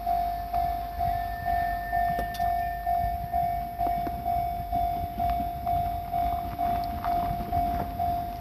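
Japanese level-crossing warning bell ringing: a single electronic tone struck steadily, about two and a half times a second.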